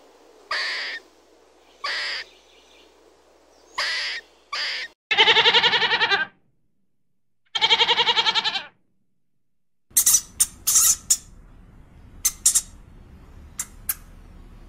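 A squirrel gives four short calls. Then a goat bleats twice, each bleat about a second long with a rapid tremble. From about ten seconds in, a hamster squeaks over and over in very short, high squeaks.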